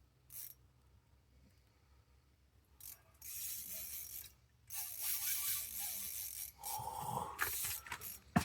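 Ice-fishing reel ratcheting and whirring in bursts while a heavy pike pulls on the line. It starts about three seconds in.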